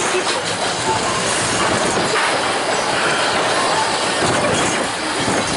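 Spinning wild-mouse roller coaster car rolling along its steel track: a steady rumble and rush of wheels on rail as the car runs and turns.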